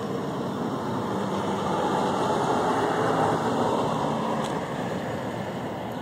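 A vehicle driving past: a rushing noise with a low engine hum that swells to a peak about three seconds in and then fades away.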